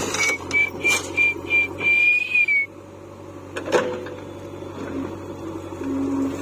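JCB 3DX backhoe loader's diesel engine running steadily. Over it comes a run of short, high whistle notes, the last held a little longer, which stop before halfway. A single knock follows just past halfway as the bucket meets the soil bank.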